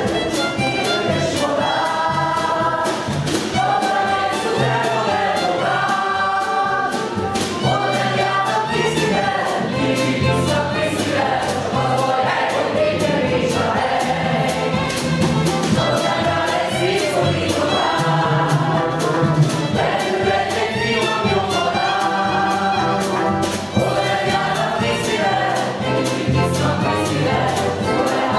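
Several voices singing together over a small band with a steady beat and a walking bass line: an ensemble number from a contemporary operetta.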